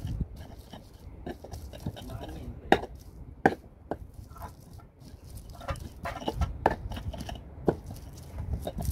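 Stone pestle crushing and grinding food in a stone mortar. It goes as a rough, uneven scraping and pounding, with now and then a sharp knock of stone on stone.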